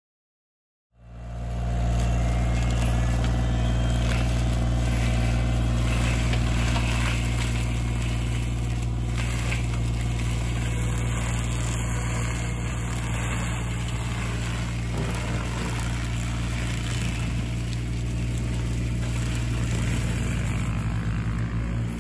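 Mini excavator's diesel engine running steadily under load while its hydraulic drum mulcher spins and grinds through brush and saplings. The sound fades in about a second in and then holds level.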